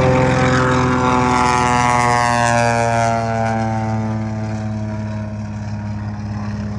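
Piston-engined propeller aircraft flying past, its engine drone sliding down in pitch as it goes by and then easing off in loudness.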